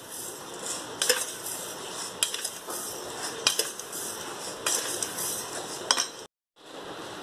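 Metal spoon scraping and clinking in a stainless steel pan as dry sugar is spooned in and spread over its base before caramelising, in strokes about a second apart over a steady hiss. The sound cuts out briefly about six seconds in.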